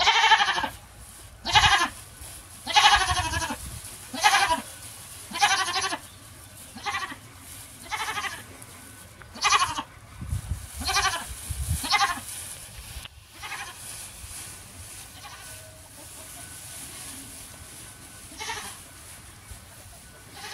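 Goats bleating, about ten loud bleats roughly a second apart, then only a couple of fainter ones after about twelve seconds.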